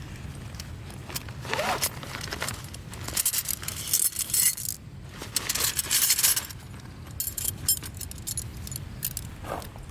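Rustling and light metallic clinking of gear being handled, in two longer bursts about three and five seconds in, with scattered clicks.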